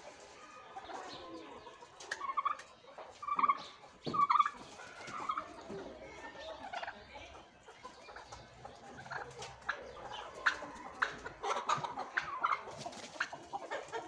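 Domestic turkeys calling in short notes, several in the first half, followed by a run of sharp clicks and knocks.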